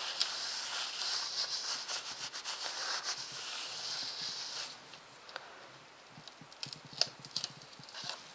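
Scratchy rubbing and rustling, like a baby wipe or brush worked over a paper card and stencil, lasting about four and a half seconds. Then a few light clicks and taps from art supplies being handled.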